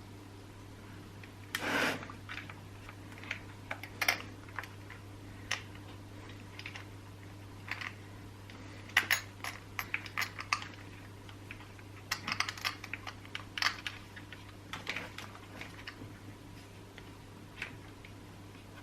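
Scattered light clicks, taps and knocks of chainsaw parts being handled as the carburetor is fitted onto its rubber intake hose, over a steady low hum.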